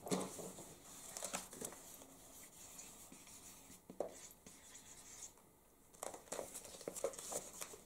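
Faint paper rustling as a large sketchpad's pages are handled and turned, with light scratching of a pen writing on paper.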